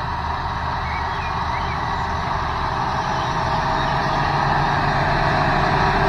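Large John Deere farm tractors' diesel engines running under load as they pull planters across a field, a steady drone that grows slowly louder as one comes closer.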